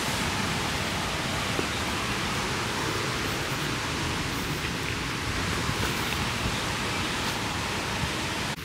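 Steady rushing noise, even and unbroken, cutting off right at the end.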